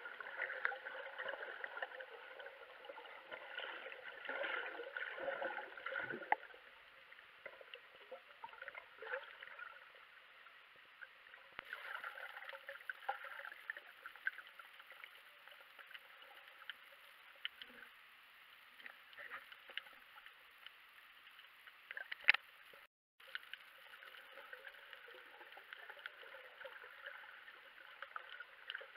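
Faint underwater ambience picked up by a camera in its waterproof housing: a steady hiss scattered with small clicks and crackles. A sharp click stands out about two thirds of the way through.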